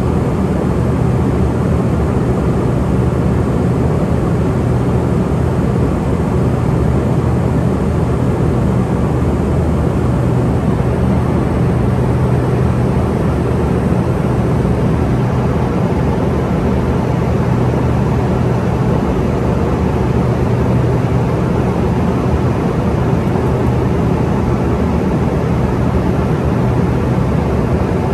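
Steady in-flight drone of an Embraer ERJ145 at cruise, heard from inside the aircraft: the rear-mounted Rolls-Royce turbofans and the rush of air over the fuselage, with a low hum under an even roar.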